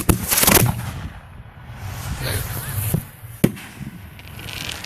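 Fireworks going off in quick succession. A sharp bang at the start is followed by a rapid crackle of reports over the next half second, then two more sharp bangs about three and three and a half seconds in, with a low rumble between them.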